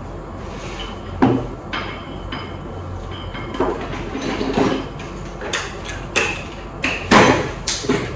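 A series of knocks and clatters, about eight or nine, from objects being handled and set down, the loudest about seven seconds in.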